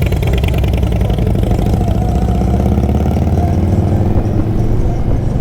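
Harley-Davidson V-twin motorcycle engine running with a low, steady note.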